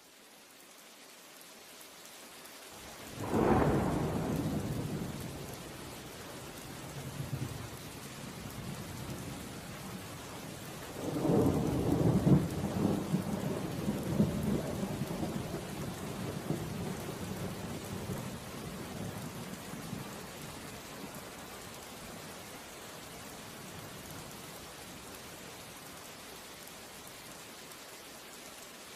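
Steady rain with two rolls of thunder. The first breaks suddenly about three seconds in. A longer roll starts about eleven seconds in and dies away over several seconds, leaving the rain alone.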